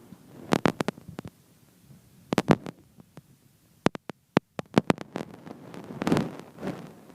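Irregular clusters of short thumps and sharp clicks: a burst about half a second in, another near two and a half seconds, a quick run of clicks around four to five seconds, and softer thumps near the end.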